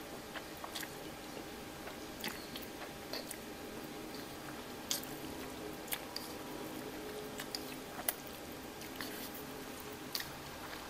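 A person eating spicy instant ramen noodles close to the microphone: slurping and chewing, with scattered wet smacks and clicks.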